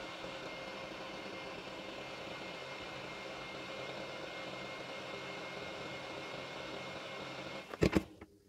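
Handheld hot air gun running, a steady fan hiss with a faint whine, while it gently heats an earbud shell to about 65–70 degrees to soften the adhesive. The hiss stops suddenly near the end, and a couple of loud knocks come just as it stops.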